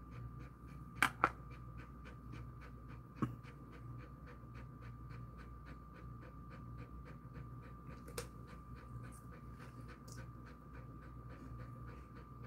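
Jindo-mix dog panting softly with mouth open after a walk, an even rhythm of about three quick breaths a second. A few light clicks at about one and three seconds in, over a faint steady hum.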